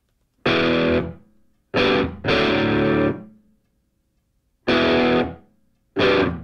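Background music: distorted electric guitar chords struck one at a time and left to ring out, five in all, with short silent gaps between them.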